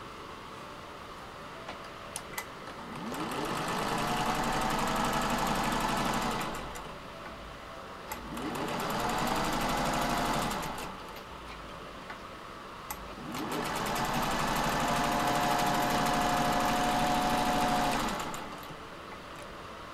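Singer 201-1 sewing machine stitching through fabric in three runs of a few seconds each, the machine speeding up at the start of each run and slowing down at the end. A few light clicks come before the first and the last run.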